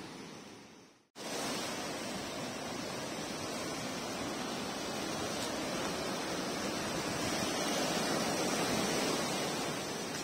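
Sea surf breaking and washing up a sandy beach, a steady rush that swells a little near the end. It starts abruptly about a second in, after a fainter sound fades out.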